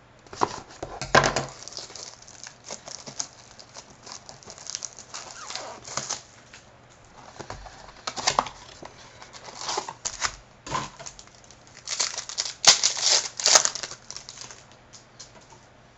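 Crinkling and tearing of a trading-card pack wrapper as it is torn open and the cards are handled, in irregular rustles that are loudest a few seconds before the end.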